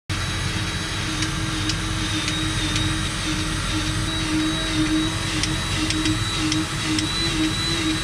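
Farm machinery running steadily: a low rumble with a pulsing mid hum, a faint high whine and scattered light ticks.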